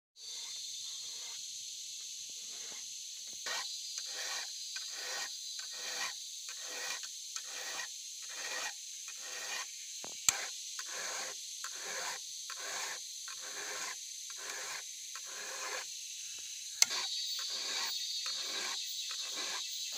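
A round chainsaw file rasping across the cutters of a Stihl saw chain, hand-sharpening it in even strokes about three every two seconds. A steady high hiss runs underneath, and two sharp clicks stand out, about halfway through and near the end.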